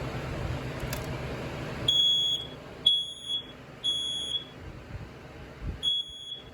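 A BRK 4120B hardwired ionization smoke alarm sounding during a test. About two seconds in, its horn starts a high-pitched beep in the three-beep temporal pattern: three half-second beeps about a second apart, a pause, then the next set of three begins. A click comes about a second in.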